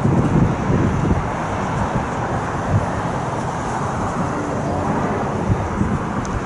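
Wind rumbling and buffeting on the camera microphone over the open-air ambience of a grass soccer field.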